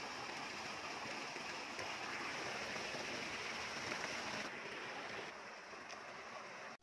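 Steady rushing outdoor noise with no distinct events, cutting off abruptly at the very end.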